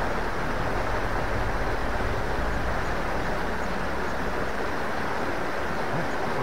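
Small river rushing fast over stones, a steady, even rush of water.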